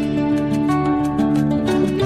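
Background music: gentle instrumental with plucked strings over sustained notes.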